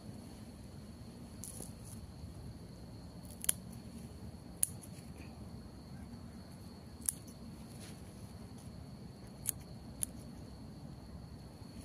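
Scissors snipping through water spinach stems: about six short, sharp snips a second or more apart, two of them close together near the end. The shoots are being cut back for harvest.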